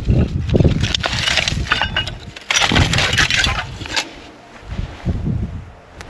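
Wind gusting against the microphone, with crackling, rustling noise full of small clicks through the first four seconds, then only the wind.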